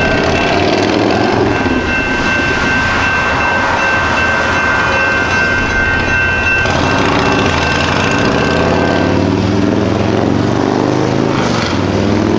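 Railroad grade-crossing bells ringing steadily while the crossing gate arms rise after a light rail train has passed. The ringing cuts off about seven seconds in, with a fainter bell stopping a couple of seconds later. Under it is a low rumble, and near the end car engines rise in pitch as traffic pulls away across the tracks.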